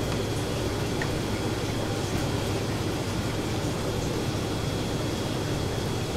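Steady mechanical hum and hiss with a thin, constant high whine, the even drone of running machinery such as a ventilation fan.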